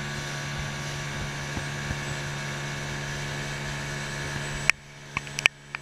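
Small boat's outboard motor running steadily, then stopping abruptly with a click about three-quarters of the way in, followed by a few sharp clicks and knocks.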